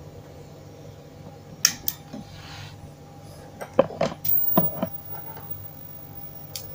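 Light clicks and knocks of multimeter test probes and tools being handled on a TV circuit board: a pair of sharp clicks about two seconds in, a cluster of knocks around four to five seconds, and one more click near the end, over a steady low hum.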